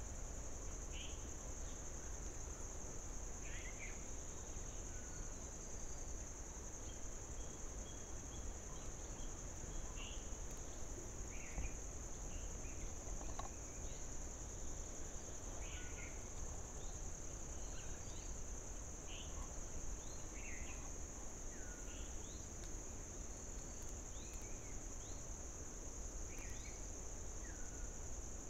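Forest insects keeping up a steady, high-pitched drone, with short bird chirps and calls scattered every second or two over it.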